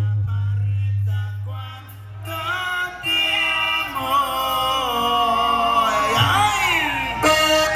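Live band music: a steady low note, then a singer comes in about two seconds in with long, drawn-out sliding notes.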